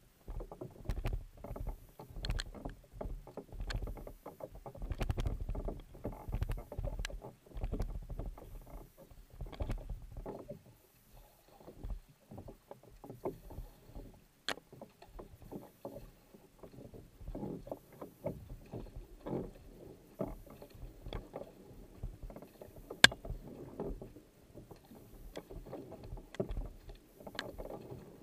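Kayak paddle strokes in the water, a steady rhythm of splashing blade catches and pulls with water lapping at the hull, louder in the first ten seconds and softer after. One sharp click stands out about two-thirds of the way through.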